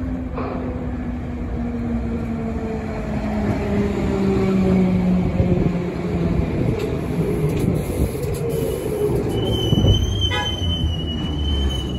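HÉV suburban electric train of the H7 line pulling into a station and slowing. A whine falls in pitch over the wheels' rumble, and a high, steady squeal sets in about nine seconds in as it comes to a stop.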